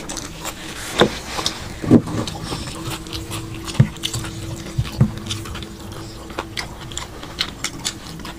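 Close-up eating sounds: chewing, lip smacks and finger licking as rice and curry are eaten by hand, a string of short wet clicks, over a steady low hum.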